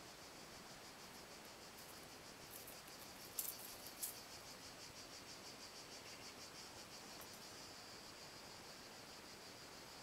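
Insects calling in a steady rhythmic series of high-pitched pulses, about five a second. Two sharp clicks half a second apart come a little over three seconds in.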